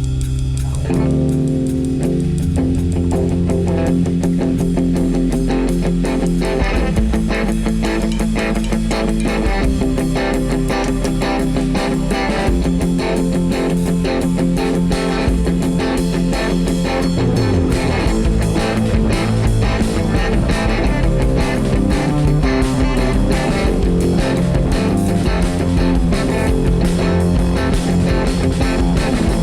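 Guitar-led rock band music with bass guitar and a steady beat, played continuously, with a chord change about a second in.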